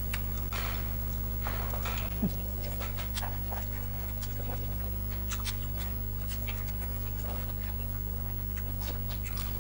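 Quiet eating sounds: scattered soft clicks and taps of chewing and cutlery, over a steady low hum.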